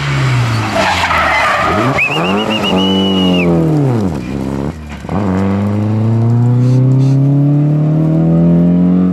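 Alfa Romeo 155 rally car taking a tight bend at speed. The engine revs drop and pick up again through the corner, and the tyres squeal for about a second and a half around two seconds in. A brief lift about five seconds in is followed by the engine pulling away with steadily rising revs.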